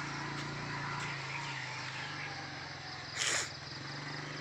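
Outdoor ambience: a steady low engine-like hum under faint insect chirping, with one short rushing burst about three seconds in.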